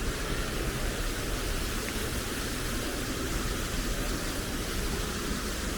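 Small waterfall's water rushing steadily, an even hiss of noise.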